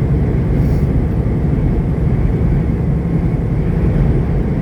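Steady low drone of a semi-truck's diesel engine and road noise, heard from inside the cab while driving at speed.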